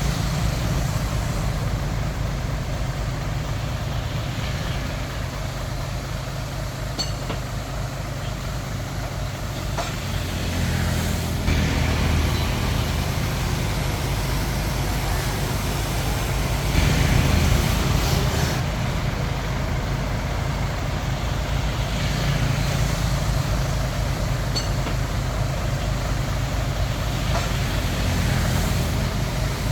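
Hitachi DX45M bulldozer's diesel engine running steadily under load. It swells louder about a third of the way in and again just past halfway, with a few faint clanks.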